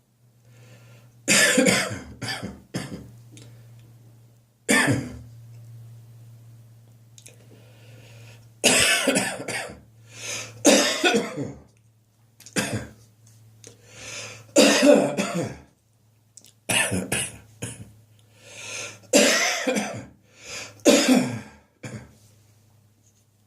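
A person coughing in about eight separate bouts of harsh coughs and throat clearing, with short pauses between them. It is a catarrh cough: phlegm in the chest and throat.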